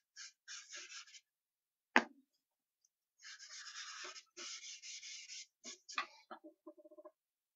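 Drawing strokes on a sheet of newsprint: a few quick scratchy strokes, a sharp knock about two seconds in (the loudest sound), then two longer rubbing strokes, followed by short scrapes.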